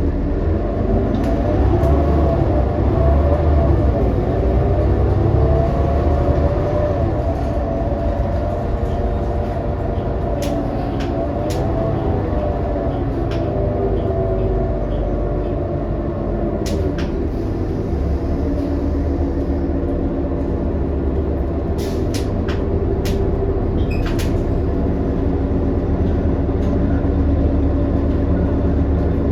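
2018 New Flyer XD40 transit bus heard from inside while driving: a steady low drivetrain rumble with a whine that rises and falls in pitch several times as it speeds up and slows. A few sharp clicks or rattles come through. It is an odd, messed-up sound for this particular coach.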